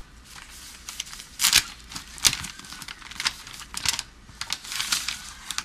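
An envelope being torn open and its paper crinkled by hand: irregular rustling and ripping, with louder crackles about one and a half and two seconds in.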